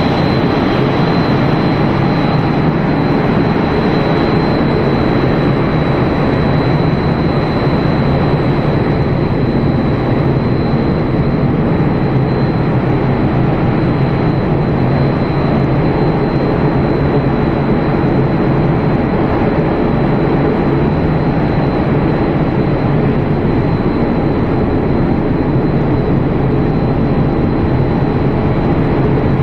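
A cereal-flake processing line running: a steady, loud mechanical rush and hum from the dryers and conveyors, with a thin high whine held throughout.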